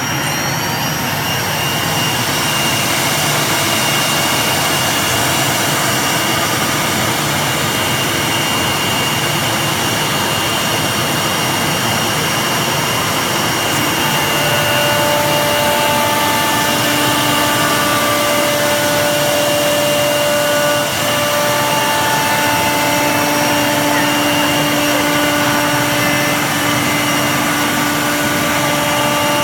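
CNC wood router running, with a loud, steady rush of machine noise and high steady whines from its spindles. From about halfway, more whining tones come and go.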